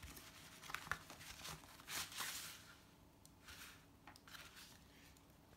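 Faint rustling and crinkling of packaging being handled, a plastic sheet and a non-woven fabric wrapping sheet, in a few soft bursts, with a couple of light clicks.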